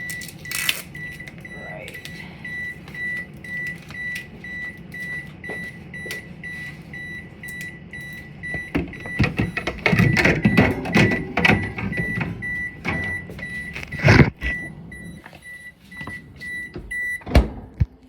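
A new refrigerator's alarm beeps in a steady high-pitched pulse, two to three beeps a second, over a low hum. Knocks and rattling come in the middle, and a thud near the end is followed by the beeping stopping.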